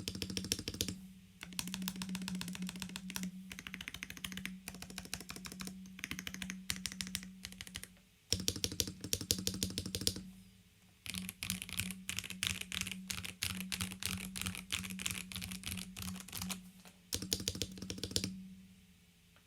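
Fast typing on a stock Dukharo VN66 mechanical keyboard, with a snap-on plastic case and foam under and above the PCB. The key clacks come in several quick runs with short pauses between them and stop about a second before the end.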